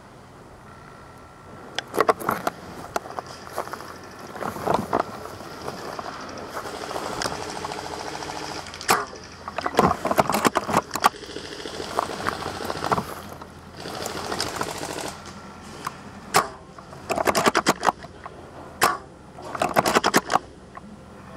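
Scattered sharp clicks and knocks, with several short rattling bursts of rapid clicks, typical of airsoft guns firing during a game.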